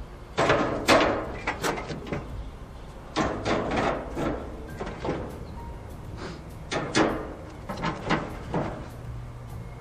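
Cast iron grill grates clanking and scraping against the grill's metal frame and each other as they are turned over and set back in place, in several short bursts of clatter.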